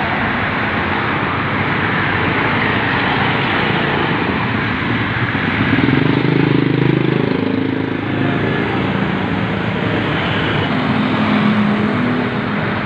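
Road traffic noise, steady throughout. A motor vehicle's engine passes close by and is loudest about six to seven seconds in, and another engine hums more faintly near the end.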